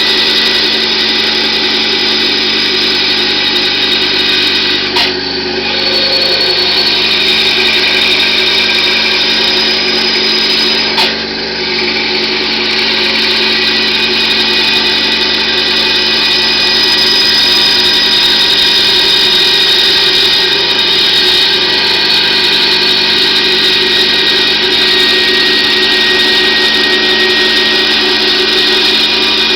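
Bandsaw with a 1/8-inch scroll blade running and cutting 18 mm multiplex plywood: a loud, steady machine whine with many pitches, and brief dips in level about five and eleven seconds in.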